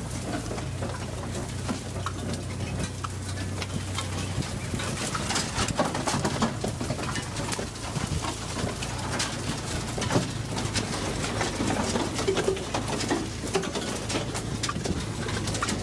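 ATV engine running steadily as a low hum, with scattered clicks and rattles on top.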